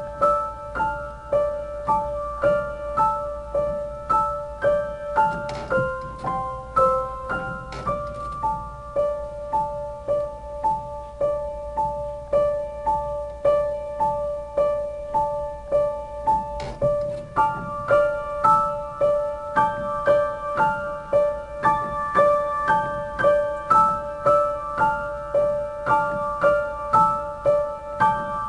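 Upright piano playing a gentle solo piece: one middle note repeated steadily, about three strikes every two seconds, under a slow melody higher up.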